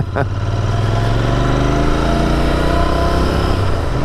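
Royal Enfield Continental GT 650's parallel-twin engine pulling under acceleration, its revs climbing steadily through one gear.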